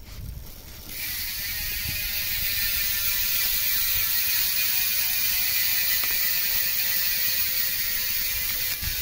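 Bicycle freehub ratchet buzzing as the wheel spins freely: the pawls click so fast they merge into a loud, steady buzz that starts about a second in, its pitch sinking slowly as the wheel slows.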